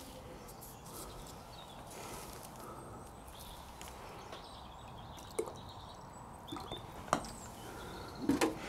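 Quiet outdoor background with a few light knocks of things being handled on a table: one about five seconds in, another about seven seconds in, and a quick cluster near the end.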